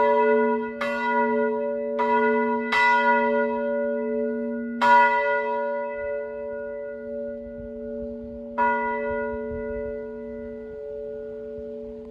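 Church bell ringing with clapper strikes that come further apart, the last about three-quarters of the way through. Its deep hum carries on between the strikes and lingers after the last one.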